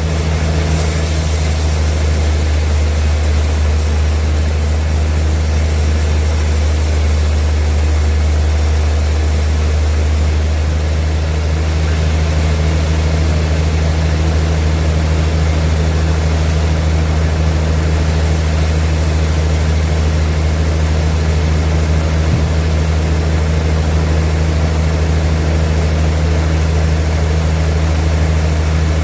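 Heavy sawmill machinery running with a steady, unchanging low hum.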